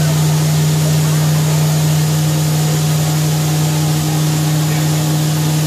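1996 Fadal VMC-8030HT vertical machining center running, a steady loud hum. A second, higher steady tone joins about two seconds in.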